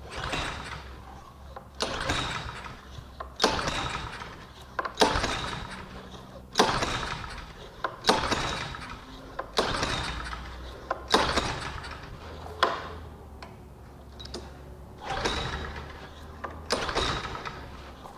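Honda GCV160 small engine on a pressure washer being pull-started by its recoil rope: about eleven pulls, roughly one every second and a half, each a quick whir of the cranking engine that fades out, with a longer pause about three-quarters of the way through. It does not catch. It is being cranked on choke with fresh fuel flow after a carburetor cleaning, and still smells of bad gas.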